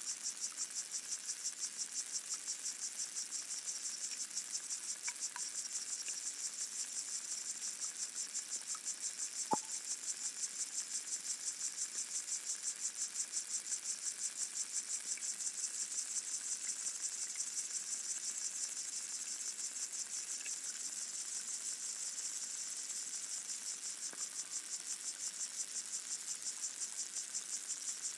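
Underwater chorus of lesser water boatmen (Micronecta), heard through hydrophones as a dense, high-pitched, rapidly pulsing stridulation. Faint scattered ticks sound over it, and there is one sharp click about nine and a half seconds in.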